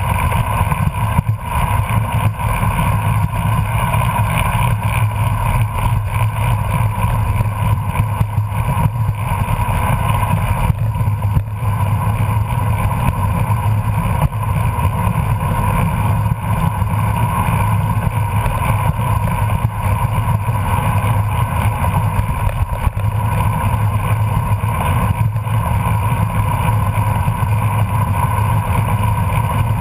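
Steady wind rush over the microphone of a camera on a bicycle moving at about 22 mph, with road noise beneath it.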